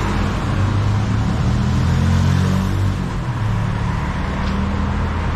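Busy road traffic: vehicle engines running and passing, a steady low hum.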